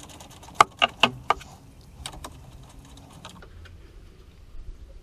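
Ratchet wrench clicking on a 10 mm bolt holding the radiator cooling fans: four sharp metallic clicks in quick succession about a second in, then a few fainter clicks later.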